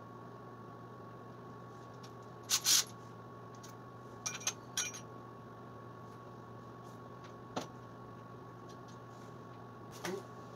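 A few short clinks and clatters of metal tools and parts being handled and set down, the loudest about two and a half seconds in, with a steady faint hum underneath.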